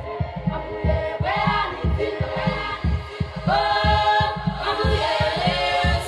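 Choir singing over a steady low drum beat.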